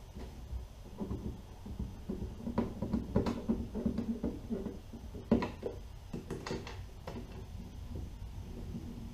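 Wood screws being driven by hand with a screwdriver through a Scotty mount base into a plastic kayak deck: scattered clicks and knocks of the tool, screw and plastic, with a short grinding stretch as a screw bites into the plastic. The loudest is one sharp knock about five seconds in.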